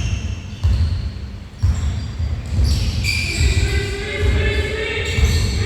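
Basketballs bouncing on a gym floor during a game, heavy thumps at an irregular pace, with high squeaks over them in the second half.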